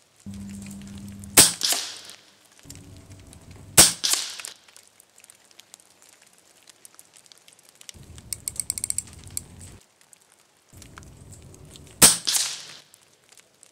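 Three shots from an RTI Arms Priest 2 PCP air rifle, each a sharp crack with a short tail, about a second in, near four seconds and about twelve seconds in. Between the second and third shots comes a quick run of small clicks as the scope's turret is adjusted.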